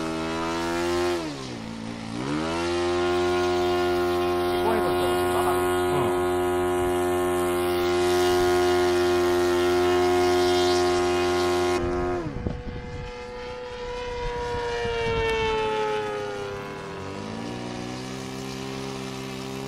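Model airplane engine and propeller running at high power. Its note dips and recovers about a second in, then holds steady. About twelve seconds in the note changes abruptly and slides slowly down in pitch, then climbs again near the end.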